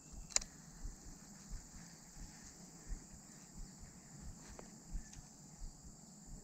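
Quiet handling of a fishing rod and reel while casting and working a soft frog lure: a sharp click about half a second in and another a few seconds later, with soft, irregular low knocks from the gear being handled.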